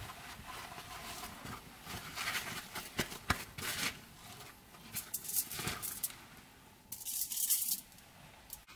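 Paper towels rustling and crinkling as a raw halibut fillet is patted dry over aluminium foil, with a few sharp clicks about three seconds in and a louder burst of crinkling about seven seconds in.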